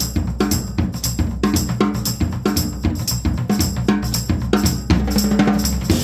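Instrumental background music with a steady, driving drum-kit beat over a bass line.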